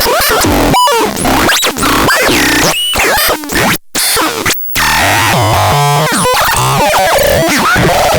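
DAZAX synthesizer playing a chaotic, noisy stream of glitchy tones with sweeping, warbling pitch glides. It cuts out briefly twice near the middle.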